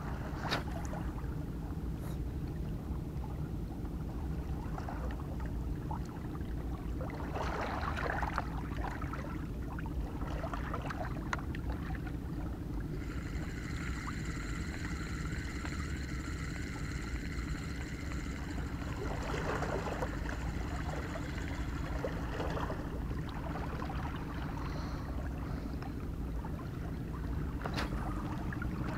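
Steady low drone of a boat engine running on the water. A thin, high whining tone joins it from about halfway through for roughly ten seconds.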